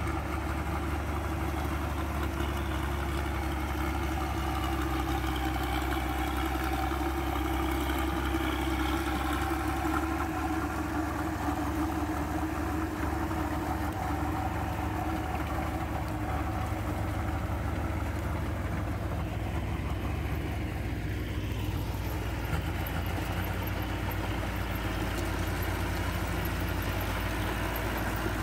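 Diesel farm tractor engine running steadily under load while plowing a flooded rice paddy.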